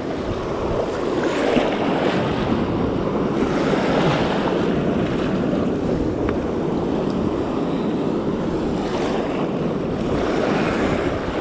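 Sea swells surging and washing around close by, with wind buffeting the microphone; the wash swells and eases a few times.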